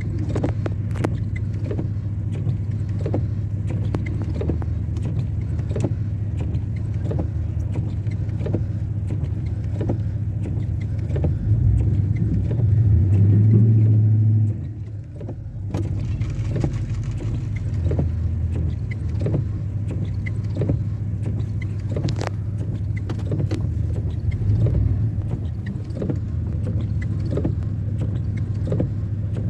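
A vehicle driving: a steady low road rumble with many small rattles and knocks. It swells louder for a few seconds about twelve seconds in, then drops away briefly.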